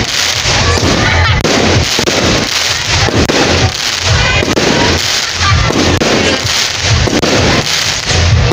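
Fireworks going off in quick succession: a dense run of bangs and crackling from aerial shells.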